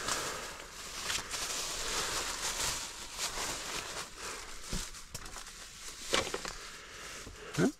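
Thin plastic grocery bag rustling and crinkling as it is rummaged through and handled, with a brief sharper sound near the end.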